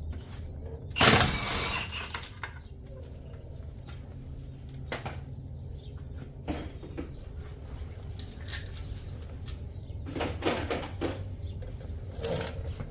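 Tools and metal parts being handled: one loud clatter about a second in, then scattered knocks and clicks over a low steady hum.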